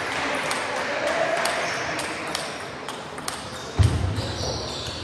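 Table tennis balls clicking irregularly off tables and bats, over a hall murmur of voices, with a sudden low thump about four seconds in.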